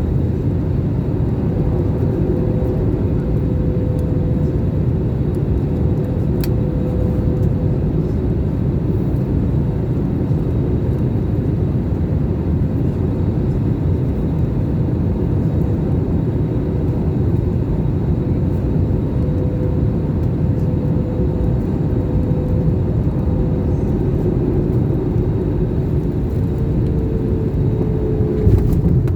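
Steady, loud low rumble of an airliner heard from inside the cabin, engine and airflow noise, with a faint steady whine on top.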